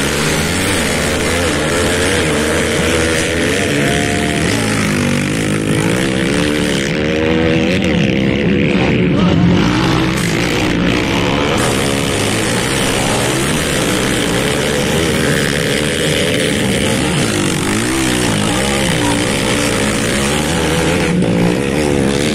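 Off-road dirt bike engines revving on a dirt enduro track, their pitch rising and falling again and again as riders work the throttle through the course.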